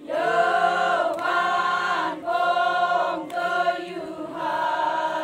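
A group of voices singing a Naga folk song together in short chanted phrases of about a second each, with brief breaks between them and a longer held phrase near the end.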